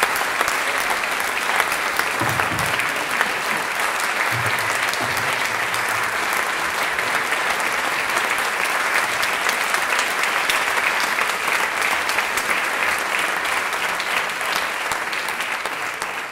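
An audience applauding, with dense, steady clapping that begins to fade near the end.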